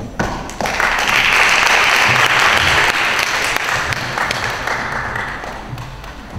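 Audience applauding: the clapping swells in about half a second in, holds strong, then dies away near the end.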